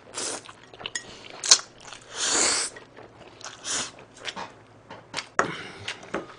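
Close-miked chewing and slurping of spicy stir-fried noodles wrapped in salted seaweed: irregular wet mouth smacks, crunches and clicks, with a longer slurp a couple of seconds in.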